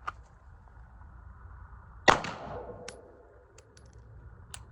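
A single sharp shot from an airsoft pistol about two seconds in, with a short ringing tail. A few faint clicks follow.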